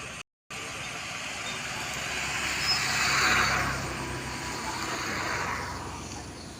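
A vehicle passing by: a rushing noise with a low hum underneath that swells to its loudest about three seconds in, then fades away.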